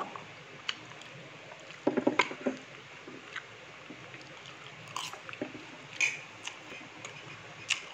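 Close-up eating sounds: chewing of thin-sliced barbecued meat and chopsticks picking at the plate, heard as scattered short clicks over a low hiss, with a small cluster of them about two seconds in.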